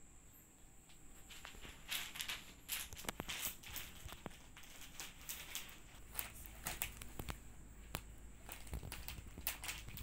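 Crinkling and rustling of a flower bouquet's plastic and paper wrapping as cats paw and bite at it: irregular sharp crackles starting about a second and a half in.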